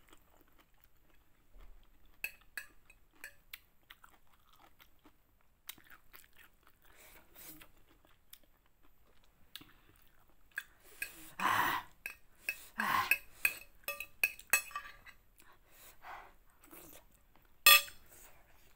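Close-up chewing and crunching of chicken noodles, with scattered clicks of a metal fork against a plate. Two louder stretches of eating noise come past the middle, and a sharp clatter of the fork on the plate near the end is the loudest sound.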